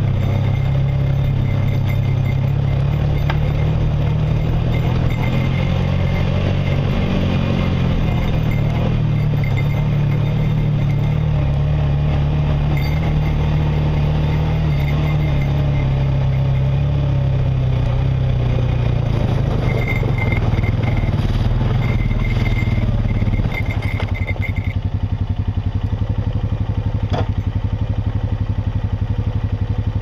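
Dirt bike engine running while ridden along a rough woodland trail, its pitch rising and falling with the throttle. About 23 seconds in it drops to a steady idle.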